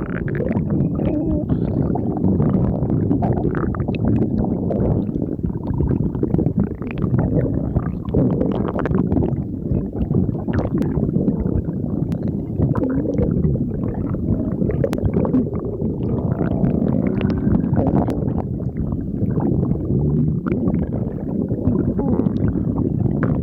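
Human stomach growling: a loud, continuous, irregular rumbling and gurgling, with small crackles.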